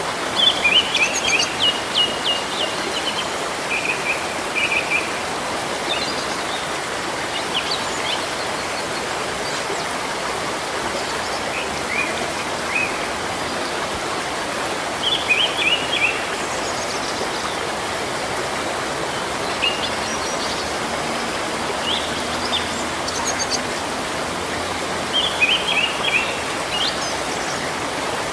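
Steady rain falling on foliage, with birds calling in clusters of short high notes every few seconds.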